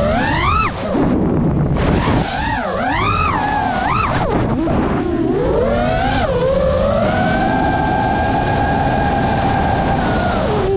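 FPV quadcopter's brushless motors whining, the pitch swooping up and down with rapid throttle changes, then holding fairly steady for a few seconds before dropping near the end, over a rush of prop and wind noise.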